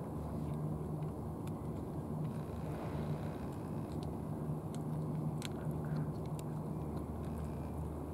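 A cat chewing and eating from a plastic food tray, with scattered small clicks of chewing. Under them, a steady low mechanical hum, like an engine running, is the loudest sound.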